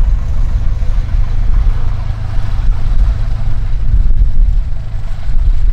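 Loud, uneven low rumble of wind buffeting the microphone, over the drone of a light aircraft's engine, a Czech Sport Aircraft PS-28 Cruiser's Rotax 912, on approach to land.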